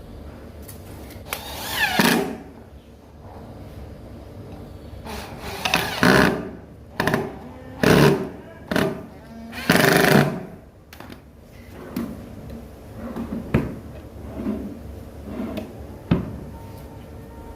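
Workshop tool noise: several short bursts of a power tool, one every second or so through the middle, followed by a few sharp knocks.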